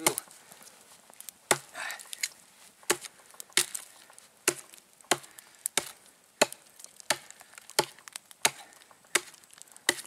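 Axe chopping into a log: a steady run of sharp blows, about three every two seconds after a short pause at the start, raising chips along the log for a nodya fire.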